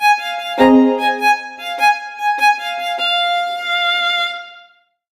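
Background instrumental music, a melody of sustained notes that fades out about four and a half seconds in, leaving silence.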